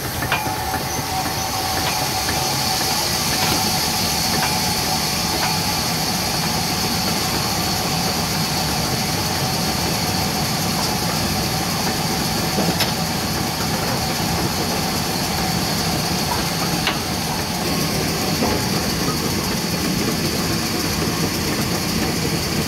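Large sawmill band saw running steadily, turned by belt from an electric motor: a continuous mechanical whir with a steady high hiss and a few faint ticks.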